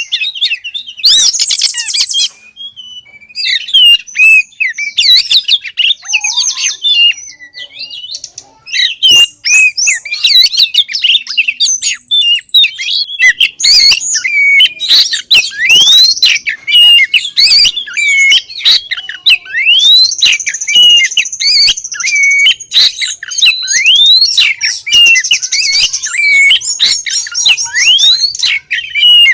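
Female oriental magpie-robin singing a loud, fast, varied run of chirps, rising whistles and rapid trills, with short pauses near the start. It is the call of a female in breeding condition calling for a male.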